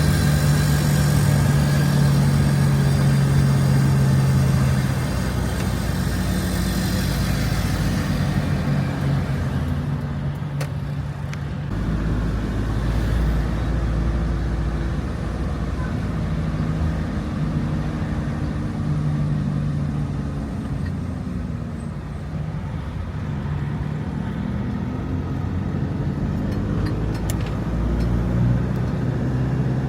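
Campervan engine and road noise while driving. The engine note holds steady, then drops and climbs again a couple of times as the van slows and picks up speed.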